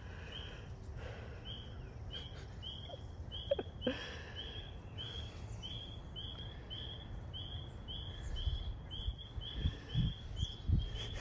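A bird repeats a short, slightly rising chirp about twice a second in an even series, over a low steady rumble.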